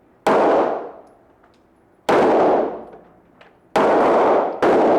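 Four handgun shots, unevenly spaced, with a long gap after the first and the last two close together. Each one rings out and decays over about half a second.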